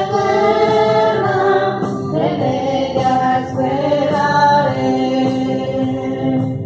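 Live hymn singing: a lead singer on a microphone with a group of voices joining, holding long notes over an electronic keyboard. Right at the end the voices stop and the keyboard holds on alone.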